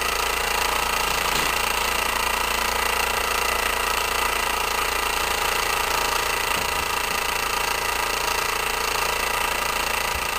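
Homemade 10cc pressurized rhombic-drive Stirling engine running steadily at about 1,740 rpm while driving a small generator.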